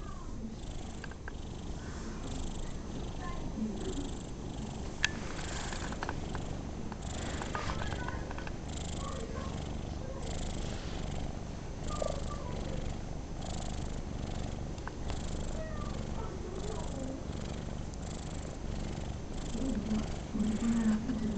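Long-haired domestic cat purring steadily while being stroked, the purr rising and falling softly with each breath. A brief louder low sound comes near the end.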